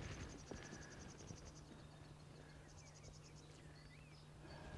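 Near silence with faint birdsong: a quick, high trill heard twice and a few short warbled chirps.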